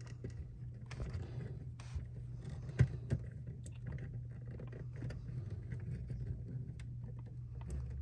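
Small clicks and scrapes of hands handling electrical wires and plastic wire nuts in a metal junction box, with a sharper click about three seconds in, over a steady low hum.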